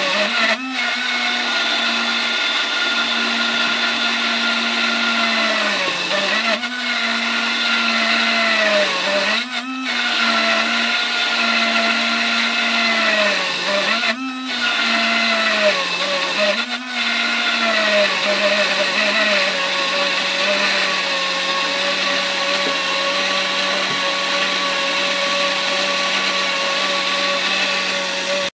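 12V centrifugal water pump motor running with a steady whine while filling the ballast tanks. Its pitch dips and recovers several times, then settles lower and steady about two-thirds of the way through. The pump is struggling to prime because it is lifting water about 5 feet from a container on the ground.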